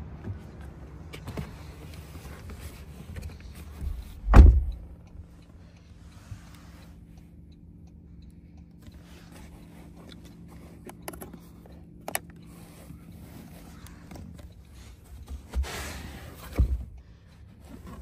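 Handling and movement noises inside a car's back seat: a heavy thump about four seconds in, a sharp click near the middle and two softer thumps near the end, over a steady low hum.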